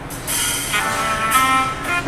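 Music playing from a Redmi Note 10 Pro's loudspeaker, several held notes together. It is a sound test showing that the repaired speaker now works.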